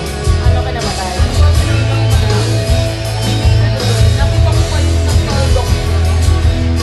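Karaoke backing track playing loudly through the room's speakers: a band arrangement with guitar and heavy bass. It cuts off sharply right at the end.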